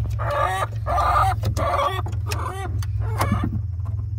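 A hen in the coop clucking, a run of about five short calls that stop a little over three seconds in. A steady low hum runs underneath.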